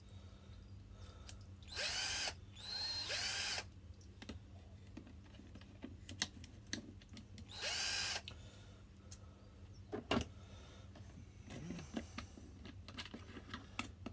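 Parkside PBSA 12 C2 12 V cordless drill driver run briefly with no load, three short bursts with the motor whine rising and falling as the trigger is squeezed and released. Small handling clicks between, with one sharp click about ten seconds in.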